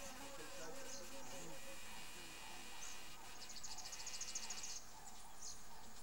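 Insect sounds: a faint wavering buzz in the first two seconds, then a rapid high-pitched pulsing trill lasting about a second and a half past the middle.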